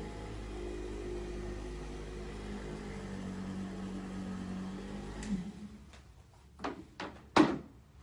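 Corded handheld electric massager running with a steady motor hum against a patient's back, switched off about five seconds in. Then a few sharp knocks, the loudest near the end.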